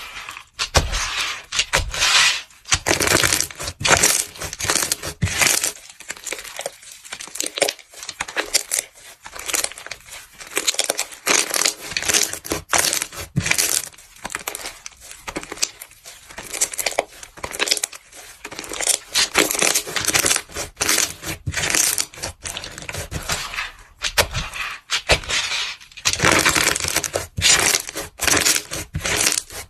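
Crunching and crackling as a crumbly material is squeezed and crushed, in runs of quick, irregular crackles and pops with short pauses between them.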